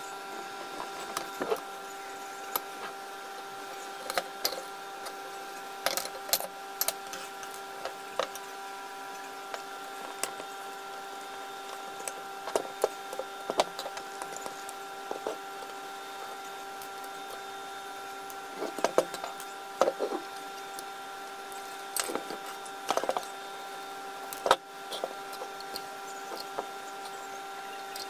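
Scattered clicks, taps and light knocks of a screwdriver and the metal and plastic parts of a Makita 1902 electric planer being handled on a wooden workbench during disassembly, over a steady background hum.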